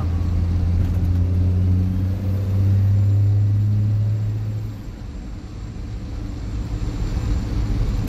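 Cab-interior drone of a 12-valve Cummins straight-six diesel pulling the truck along at road speed. It grows louder and rises slightly in pitch, then eases off sharply a little under five seconds in and carries on quieter.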